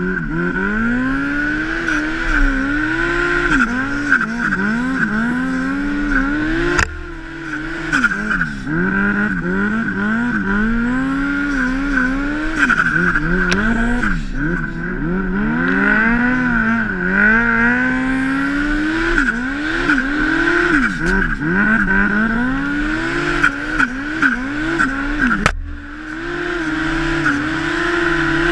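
Turbocharged Yamaha Apex snowmobile's four-stroke four-cylinder engine revving up and down again and again under load in deep powder, with a steady high whine over it. It drops off briefly twice, about seven seconds in and near the end.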